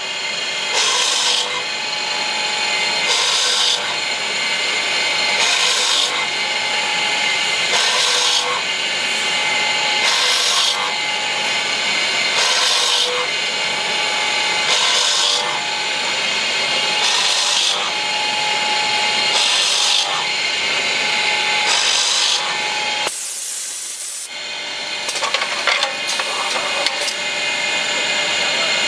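Automatic brake lining drilling machine boring holes through a curved brake lining: a harsh grinding hiss with each hole, repeating about every two and a half seconds, over a steady motor whine. The sound drops off briefly a little past the middle.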